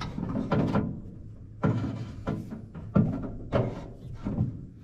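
Background music with a steady run of struck notes, a little under two a second.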